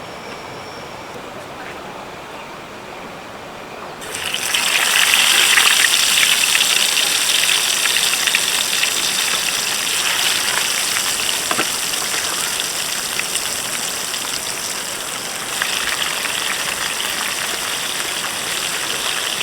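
Steady rush of flowing river water, coming in suddenly about four seconds in and staying loud and even.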